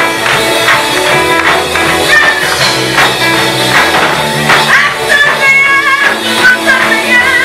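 A live band plays a praise and worship song with a steady beat, guitar and percussion. Voices sing a held, wavering line through the second half.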